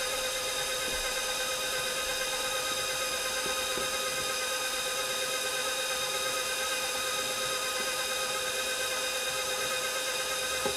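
KitchenAid Professional 550 HD stand mixer running steadily with a constant motor whine, its beater mixing cookie dough as the flour mixture is poured in little by little.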